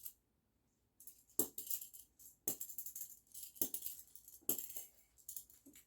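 Plastic magnetic building blocks clacking and rattling against each other as they are handled and stuck together. About a second in, a series of sharp clacks begins, each followed by a short clatter.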